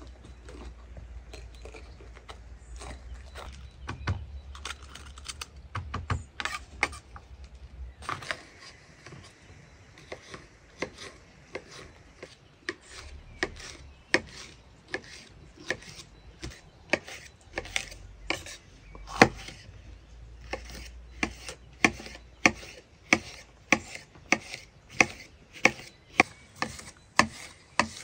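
Kitchen knife slicing green bell pepper into strips on a wooden cutting board, each cut ending in a knock of the blade on the board. The cuts come unevenly at first, then settle into a steady rhythm of about one and a half a second near the end.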